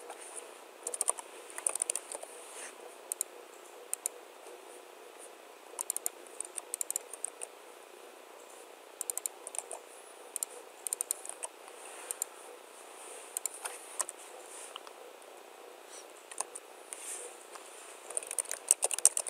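Computer keyboard typing in irregular bursts of keystrokes, with short pauses between the bursts.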